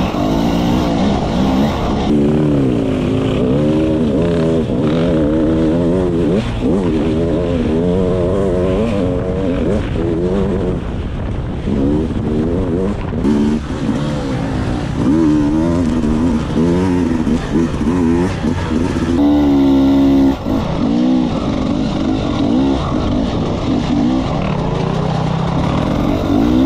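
Dirt bike engine under way on a trail, its pitch rising and falling over and over as the throttle is worked. About two-thirds of the way in it holds a high rev for a second or so, then drops off sharply.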